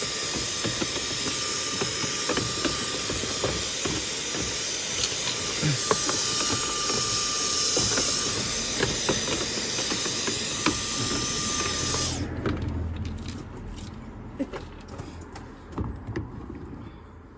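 Handheld vacuum cleaner running, a loud rushing hiss with a thin steady whine and light ticks as its nozzle cleans out an air filter housing. It switches off suddenly about twelve seconds in, and a few soft knocks follow.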